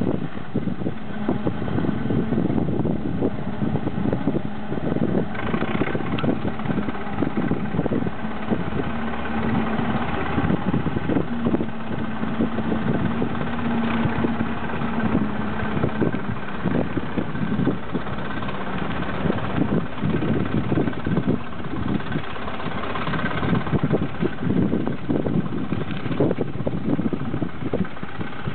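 KrAZ-256B1 dump truck diesel engines idling, with a steady low hum through the first half.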